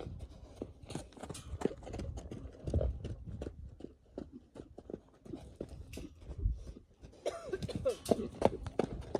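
Hoofbeats of a mustang cantering in circles on the dirt floor of a round pen, an irregular run of dull thuds and knocks.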